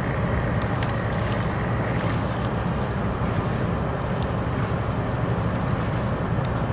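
A cargo ship's engine machinery running with a steady low rumble, with wind buffeting the microphone.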